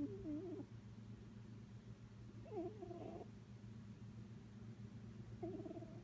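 Domestic cat snoring in its sleep: a short wavering snore on each breath, three times about three seconds apart, over a low steady hum.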